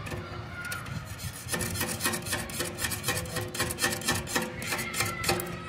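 Tip of an unlit stick-welding electrode scraping and tapping across a steel plate: a fast run of scratchy clicks, starting about one and a half seconds in, with the plate ringing under them.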